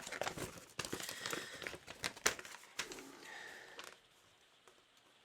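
Handling noise from a small action camera being turned over in the hands, with sharp clicks of its buttons being pressed, dying away about four seconds in.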